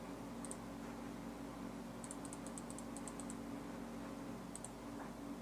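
Faint, light clicking of a computer mouse and keyboard: a single click, then a quick run of about ten clicks about two seconds in, and two more near the end, over a steady low electrical hum.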